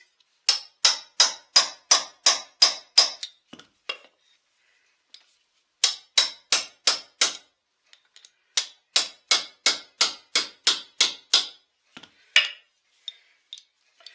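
Hammer tapping in quick, sharp blows, about three a second, in three runs of several strikes each, while the crankcase halves of a Husqvarna 263 chainsaw are split apart.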